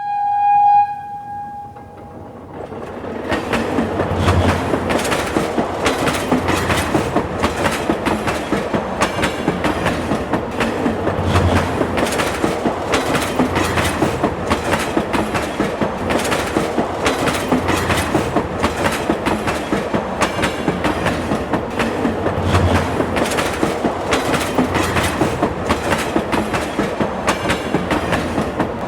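A train horn gives one short blast, then a train rolls past with a steady, fast clickety-clack of wheels over rail joints.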